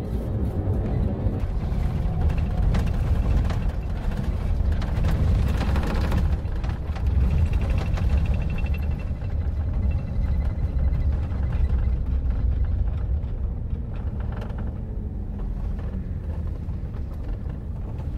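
Cabin noise inside a double-decker expressway bus: a steady low engine and road rumble, easing slightly as the bus leaves the expressway and slows into a service-area car park.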